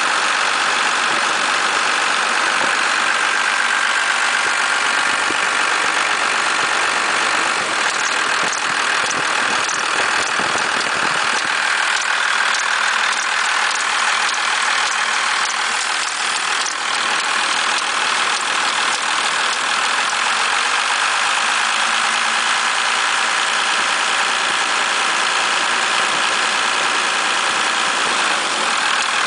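Dodge Cummins 5.9-litre inline-six diesel idling steadily, with the odd noise at idle that the owner is concerned about and ties to the belt tensioner bucking.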